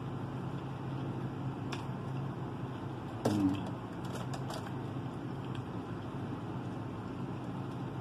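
Faint clicks and rustles of hands picking through seafood in an aluminium foil pan, over a steady low hum, with one short louder sound about three seconds in that briefly slides in pitch.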